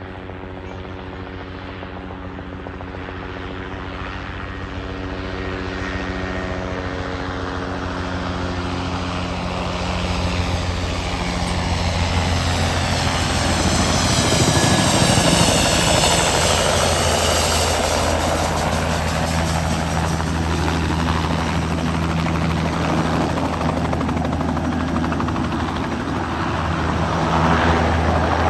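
A two-bladed light helicopter running at close range as it approaches and then hovers low. It grows steadily louder over the first fifteen seconds or so, then holds a steady, loud rotor and engine sound.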